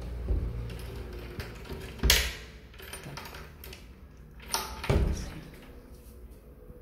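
Built-in wooden wardrobe doors being opened by hand, with a sharp clunk about two seconds in and two more knocks in quick succession around five seconds in.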